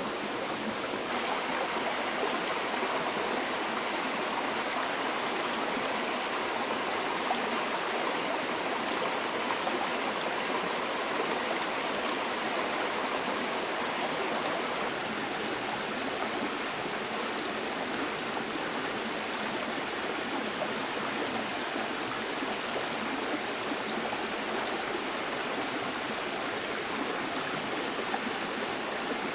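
A small stream running, a steady rush of flowing water, with a thin, steady high tone above it.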